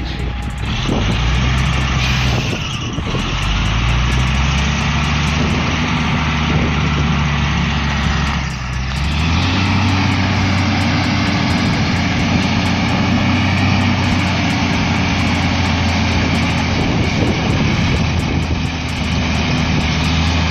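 Heavy diesel truck engine running, its revs rising a few seconds in, dipping briefly, then climbing to a higher pitch that holds steady.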